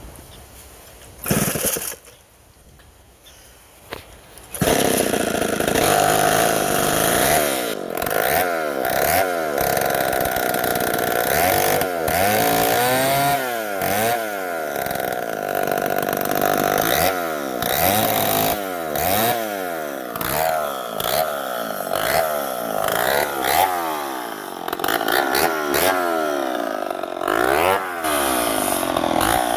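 Homelite 770D 95cc direct-drive chainsaw: a short loud burst about a second in, then about four and a half seconds in the saw catches and runs loudly, its revs falling and rising over and over, about once a second. It is still finicky, which the owner puts down to a carburetor needing a kit and the engine starving for fuel.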